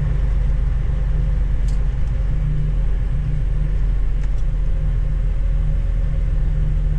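Semi truck's diesel engine running at low speed, a steady low rumble heard inside the cab.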